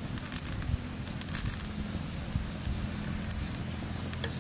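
Quiet outdoor ambience with scattered faint clicks and a low steady hum.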